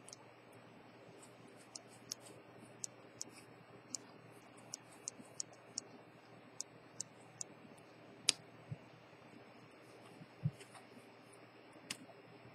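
The crown of a Chanel J12 Automatic watch turned between fingers, giving small, sharp, irregular clicks about one or two a second. A louder click comes about 8 seconds in and a soft low thump a couple of seconds later, over a faint steady hum.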